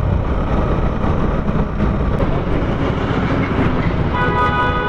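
Suzuki Gixxer SF motorcycle riding at cruising speed: steady engine rumble with wind noise on the helmet camera. A vehicle horn sounds in one steady blast about four seconds in.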